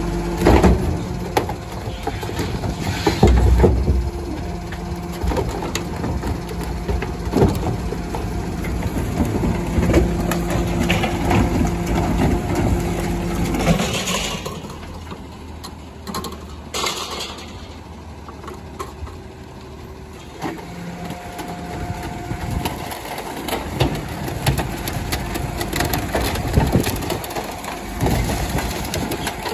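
Rear-loading garbage truck's compactor crushing hard waste: the engine and hydraulics run with a steady tone while the load cracks and crunches in the hopper. It goes quieter about halfway through, then the hydraulics start up again with more knocks and cracks.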